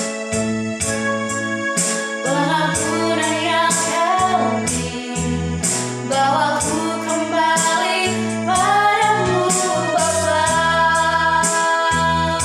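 Worship song: a woman singing over steady electric keyboard chords with a regular beat; the voice comes in about two seconds in.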